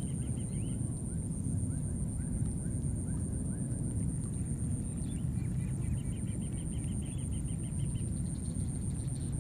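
Outdoor field ambience: a steady low rumble under a continuous high, thin whine, with a run of quick high chirps at the start and another about six seconds in, and a few softer falling chirps between them.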